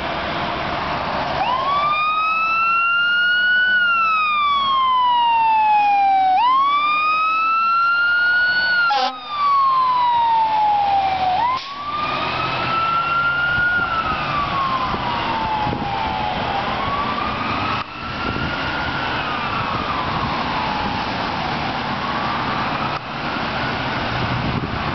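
Emergency-vehicle siren from a fire engine and ambulance running code 3, wailing up and down in long sweeps about every five seconds. The wail grows fainter in the second half as the trucks drive away, with traffic noise underneath.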